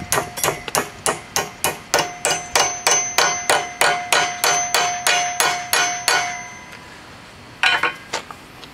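Hammer blows on a small metal tab clamped in a bench vise, bending it over to 90 degrees: quick, even strikes about four a second, each with a metallic ring. The blows stop about six and a half seconds in, and a brief clatter follows about a second later.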